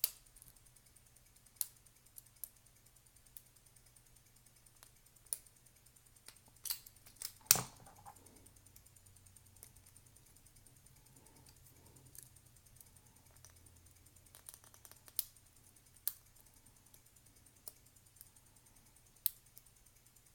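Sparse, irregular metallic clicks and ticks from picking Abus padlocks: a hook pick and a pry-bar tension wrench working and setting the pin tumblers. About seven and a half seconds in comes one louder clack with a short ring.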